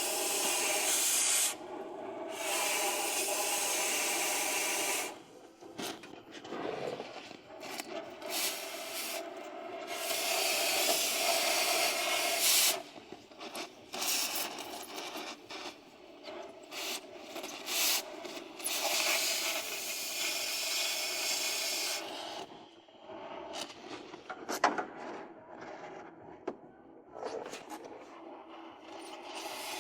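Metal fabrication tool noise: repeated bursts of hissing, rasping sound a few seconds long, with quieter gaps and scattered clicks between them.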